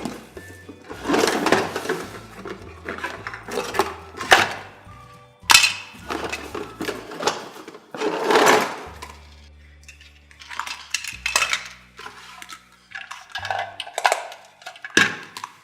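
Small plastic toy pieces clattering and clinking as they are handled, in irregular bursts, over soft background music.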